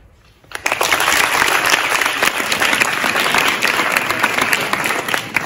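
Audience applauding, with many hands clapping at once. The applause starts suddenly about half a second in and begins to fade near the end.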